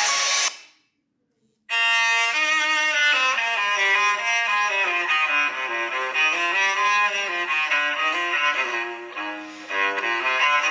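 Nokia 5310 XpressMusic ringtones: one ringtone fades out within the first half second, and after about a second of silence the next ringtone starts, a melody of clearly changing notes.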